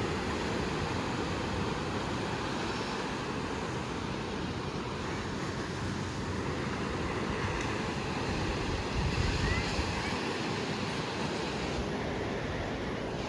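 Sea surf breaking and washing on the beach in a steady rush, with wind buffeting the microphone, strongest about nine seconds in.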